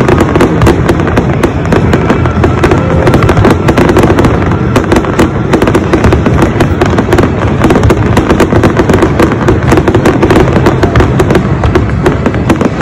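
Aerial fireworks display going off in a rapid, unbroken run of bangs and crackles, several a second.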